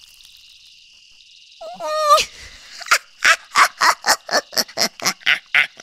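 Steady chirring of night insects, then a short rising vocal cry about two seconds in, followed by a rapid string of short yelping sounds, about five a second.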